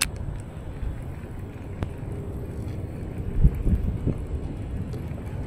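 Wind buffeting the microphone as an uneven low rumble, with a sharp click right at the start and another about two seconds in.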